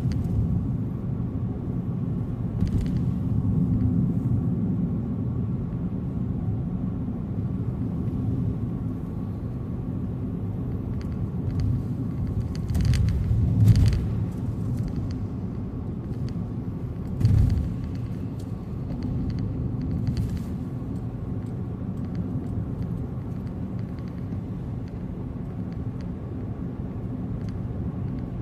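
A car driving on a highway, with a steady low road and engine rumble, a few brief knocks, and two louder bumps, one about 14 seconds in and one about 17 seconds in.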